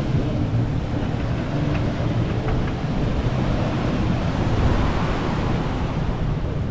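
Steady rush of wind buffeting the microphone over the wash of ocean surf.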